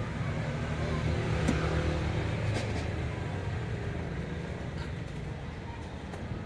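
Street traffic: a motor vehicle passing close by, with a low rumble that is loudest about a second and a half in and then slowly fades.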